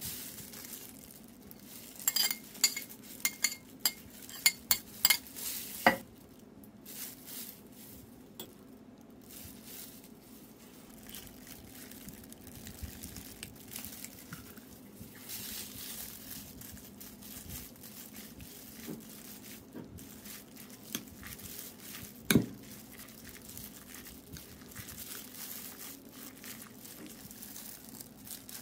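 Kitchen handling sounds around a ceramic mixing bowl: a run of sharp clinks and taps in the first few seconds, then quieter rustling and stirring with a spoon, and one sharp clink about 22 seconds in.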